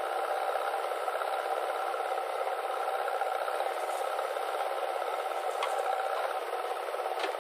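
Diesel engines of a JCB 3DX backhoe loader and a tractor running, a steady rattling drone with no deep bass. There is a faint click about two-thirds of the way through and another near the end.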